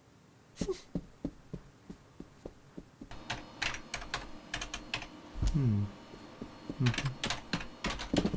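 Clicks of typing on a computer keyboard: a few spaced keystrokes at first, then quicker, denser typing from about three seconds in. Two short, low voice sounds falling in pitch come in the second half.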